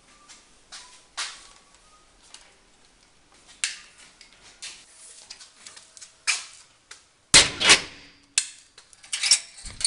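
Irregular sharp clicks and knocks of hand tools and small parts being handled, with a louder cluster of knocks about seven seconds in.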